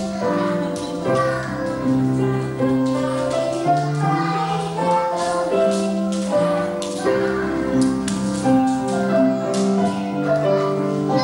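Grand piano playing a lively tune, a quick run of notes and chords, as accompaniment for children's movement exercises.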